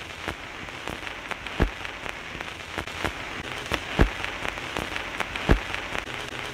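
Vinyl record surface noise between tracks: a steady soft crackle and hiss with scattered clicks and several louder pops.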